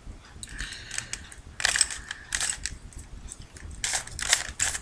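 Plastic Rubik's cube being twisted, its layers clicking and scraping as they turn in a series of quick moves.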